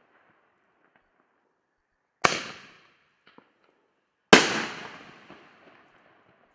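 Two sharp bangs from 5-inch consumer artillery-shell fireworks, about two seconds apart, each trailing off over a second or more, with a couple of small pops between them. The second bang is the louder.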